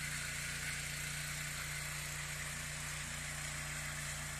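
Motor hoe (rotary garden tiller) engine running steadily while tilling garden soil.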